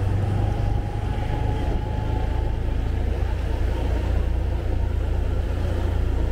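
Motorbike riding slowly along a street: a steady low rumble of engine and wind.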